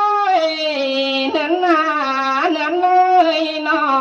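Thái folk singing: one voice drawing out a wordless vowel in long held notes, stepping and sliding between pitches with quick ornaments.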